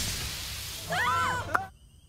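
Fading noise after a gyrosphere crash, then a short cry that rises and falls in pitch about a second in. The sound cuts off abruptly and gives way to faint, steady cricket chirring.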